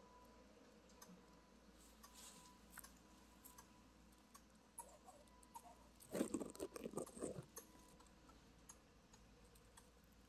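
Near silence with faint scattered clicks, and about six seconds in a brief burst of soft, rapid crackling rustle lasting just over a second.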